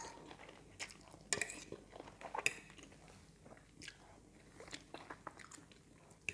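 Pancit kanton noodles being eaten: soft slurps, chewing and wet mouth smacks and clicks at irregular intervals, faint.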